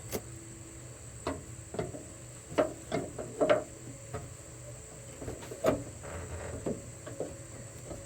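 Irregular metal clicks and light knocks, about a dozen, from a 10 mm ratchet and a metal bracket being worked around a hood bolt.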